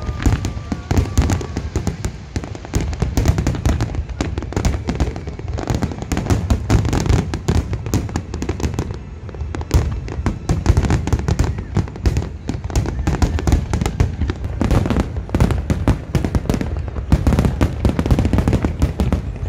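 Big aerial fireworks display: many shells bursting in rapid, overlapping bangs, easing briefly about nine seconds in and then picking up again.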